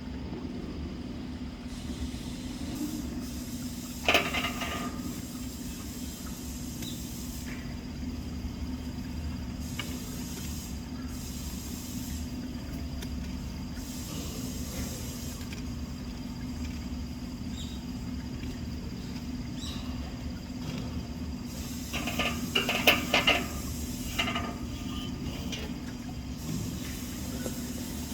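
A steady low hum with a low rumble under it, broken by a short, sharp, loud sound about four seconds in and a quick cluster of similar sharp sounds near the end.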